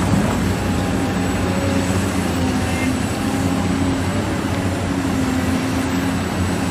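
Steady engine-like rumble with a low hum, like a heavy machine running, cutting in and out abruptly as an added sound effect for the toy excavator.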